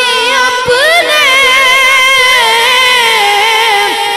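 A boy's solo voice singing a naat into a microphone, drawing out long, wavering notes with slow slides in pitch.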